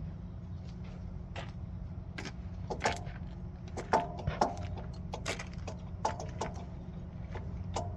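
Car engine idling with a steady low hum, while irregular light metallic clinks and ticks sound over it, loudest about four seconds in.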